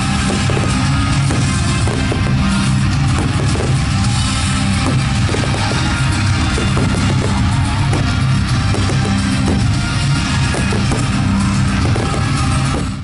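Music with a steady drum beat and guitar.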